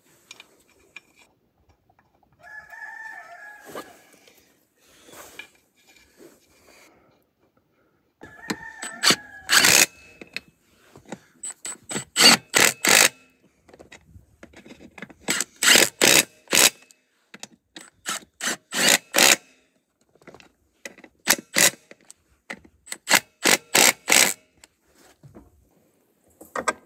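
Hand wrench working on the ATV's wheel lug nuts: five bursts of three to five sharp metallic clicks in the second half. Two short falling cries about three and nine seconds in.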